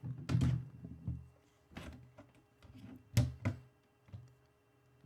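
A string of knocks and thuds from hardware being handled while the NVR and its cables are disconnected, the loudest about three seconds in.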